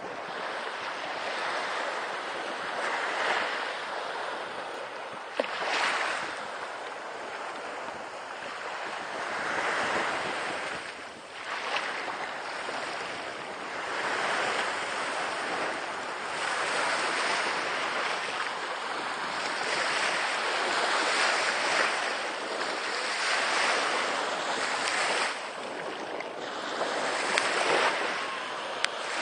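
Small waves breaking and washing up a sandy beach, the noise swelling and easing every few seconds, with wind on the microphone.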